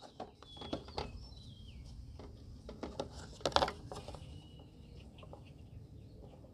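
Light clicks and knocks of small mower parts being handled as the repaired vacuum hose is fitted back in, irregular, the loudest knock about three and a half seconds in. Birds chirp in the background.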